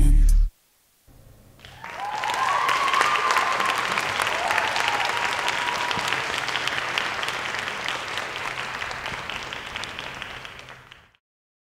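The last loud hit of the dance music, a moment of silence, then an audience applauding with a few cheers. The applause starts about a second in, swells, fades gradually and cuts off shortly before the end.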